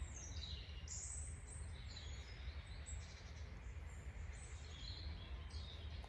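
Wild songbirds singing in woodland: a few quick high phrases that fall in pitch near the start, then scattered chirps, over a steady low rumble.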